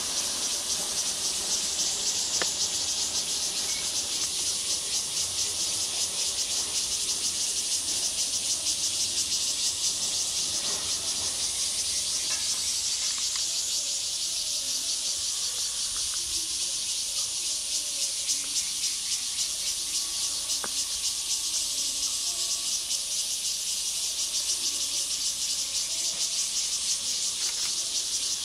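Dense insect chorus: a steady, high, fast-pulsing buzz that holds without a break.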